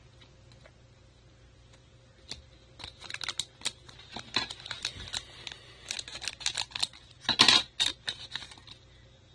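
Foil trading-card pack wrapper crinkling and crackling in the hands: a dense run of sharp crackles starting about two seconds in, loudest near the end.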